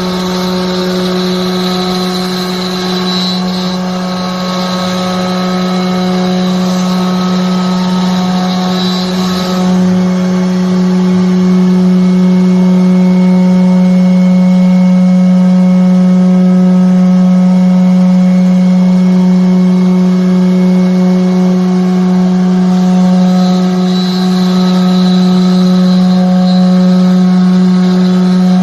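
CNC router spindle running steadily while cutting wood, a constant hum with even overtones that gets a little louder about ten seconds in.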